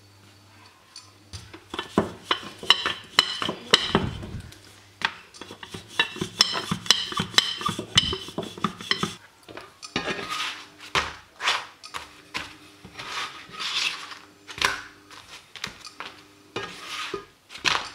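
Wooden rolling pin rolling roti dough on a granite countertop, clattering and knocking for several seconds. From about ten seconds in, short scraping swishes come roughly once a second, a spatula working over the frying pan.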